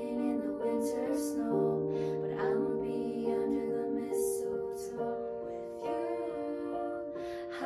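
Young women singing a slow song together over a soft instrumental backing, with long held chords and breathy, sustained vocal lines.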